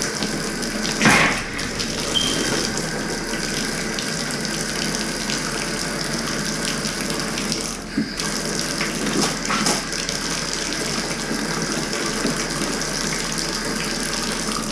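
Water running steadily from a bathtub spout into the tub, with the faucet open on a water service just recharged after a copper-to-CPVC repair. There is a short louder spot about a second in, and the flow briefly dips about halfway through.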